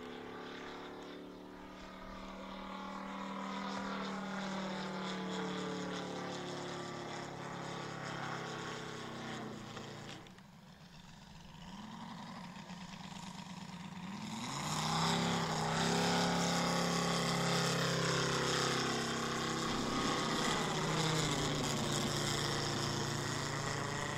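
Engine and propeller of a radio-controlled scale Let Z-37 Čmelák agricultural plane in flight, its note swelling and fading as it turns. It drops away about ten seconds in, then climbs in pitch and gets loud for a close pass.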